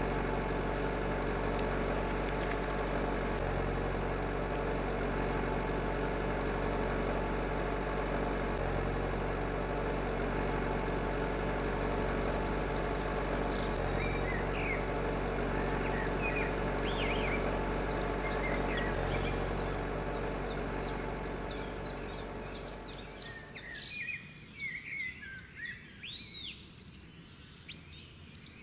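Steady mechanical hum from the drive of a home-made miniature JCB backhoe as it loads gravel. It fades out about three quarters of the way through, leaving birds chirping.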